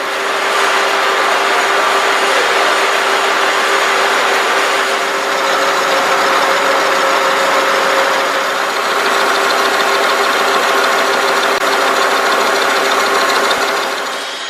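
A Knuth WF 4.1 tool milling machine running. Its spindle drive and gearbox give a steady mechanical whine, with several constant tones over a hiss, that falls away near the end.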